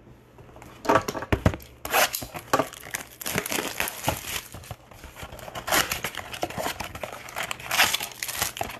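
Trading-card pack wrappers crinkling and tearing as packs are ripped open and handled, with many sharp crackles, starting about a second in.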